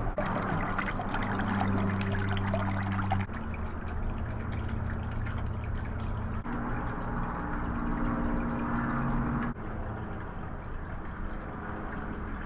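Running, trickling water over a steady low hum, the mix shifting abruptly about every three seconds.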